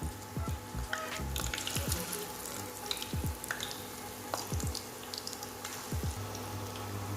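Marinated boneless chicken pieces deep-frying in hot oil in a pan: a steady sizzle with scattered pops and crackles.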